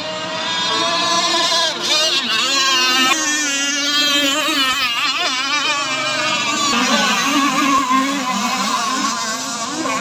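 Several radio-controlled racing powerboats' engines whining at high speed, their pitch wavering up and down as they race past and turn.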